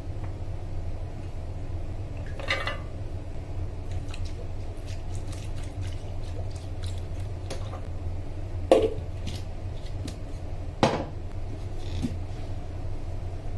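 Kitchen handling noises while a stainless steel grinder jar is filled for a smoothie: soft clatter of banana slices and milk going in, and a few sharp knocks of the steel jar and a glass on the stone counter, the two loudest about nine and eleven seconds in. A low, steady hum lies underneath.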